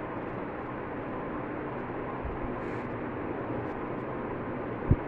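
Steady background room noise with faint scratches of a marker writing on a whiteboard, and a single short low thump near the end.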